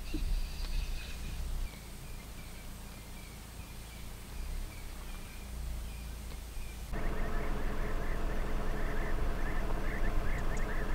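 Low wind rumble on the microphone. About seven seconds in, an abrupt cut brings a louder, dense chatter of rapid, repeated bird calls, which breaks off just as suddenly near the end.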